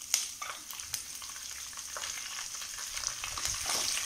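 Curry leaves, chana dal and peanuts sizzling in hot oil in a non-stick kadai, with a few sharp crackles near the start as the freshly added leaves splutter. The sizzle grows louder toward the end as a wooden spatula starts stirring.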